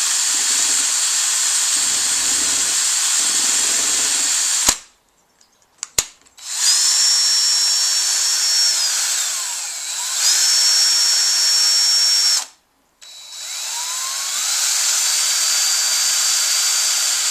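Electric drill spinning a paint-stirrer paddle in a tin of paint. It runs in three long bursts with short stops between, and the motor whine rises as it speeds up and falls as it slows in the later runs.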